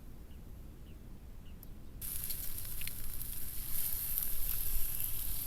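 Faint bird chirps, then about two seconds in a sudden switch to a steady hiss with scattered crackles, growing louder: food sizzling as it fries in a pan.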